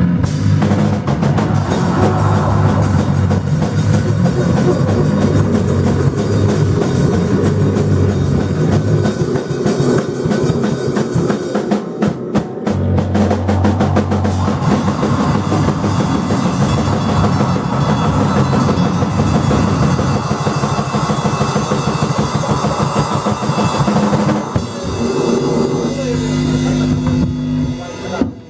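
Live band playing loud rock with a pounding drum kit over low bass notes. The sound breaks off for an instant about twelve seconds in. Near the end the drums drop out, leaving a held low drone.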